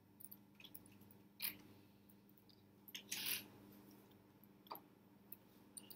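Faint, scattered clicks from a computer mouse, one clearer than the rest about one and a half seconds in, over a faint steady low hum.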